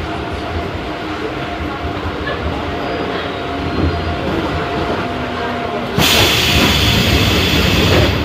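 Inside a subway car: the train's steady running rumble. About six seconds in, a sudden loud hiss starts and lasts about two seconds.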